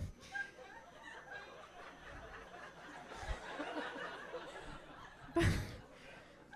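Live audience laughing, a spread-out crowd laugh, with a short loud burst about five and a half seconds in.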